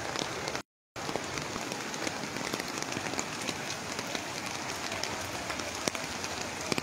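Steady rain falling, an even hiss dotted with many separate drop ticks, mixed with the rush of a fast-flowing, flood-swollen river. The sound drops out briefly just under a second in.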